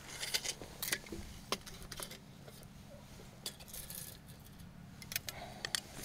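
Steel tape measure being drawn out and handled along a timber post: scattered light metallic clicks and short rattles.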